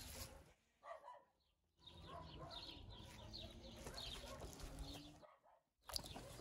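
Near silence, with faint indistinct sounds between about two and five seconds in.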